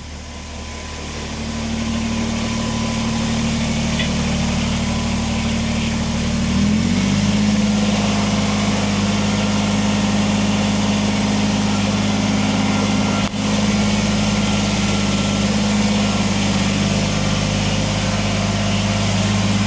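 Kubota BX23S tractor's three-cylinder diesel engine running steadily. It grows louder over the first couple of seconds, and its pitch steps up to a higher engine speed about seven seconds in.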